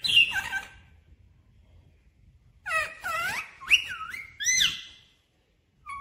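Rose-ringed parakeet calling: a short burst of sharp calls at the start, a pause, then a run of high whistled calls that swoop down and back up in pitch, with a few sharp clicks among them.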